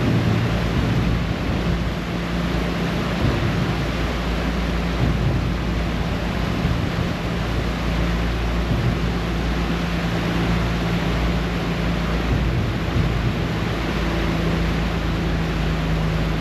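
A passenger ferry's engines running steadily under way, a low drone with a steady hum, over the rushing water of the churned-up wake.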